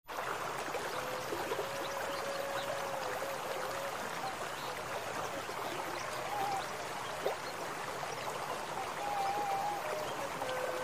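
Small stream of water running steadily through the wet rice paddy, with a faint wavering tone now and then.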